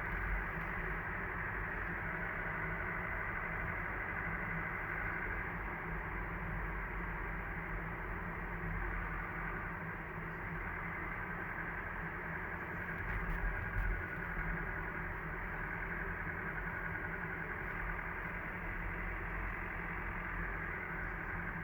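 Mazda CX-30 diesel on the move, with a steady low rumble and a whistle-like tone above it that swells and fades. It is the recorder-like abnormal noise from the engine bay, which persists after the dealer replaced the turbocharger, part of the engine and the transmission.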